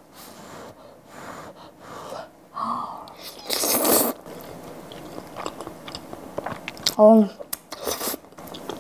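Close-miked slurping of creamy pasta noodles: a long slurp about three and a half seconds in and a shorter one near the end, with wet chewing and lip-smacking clicks between. A short hummed voice sound just after seven seconds.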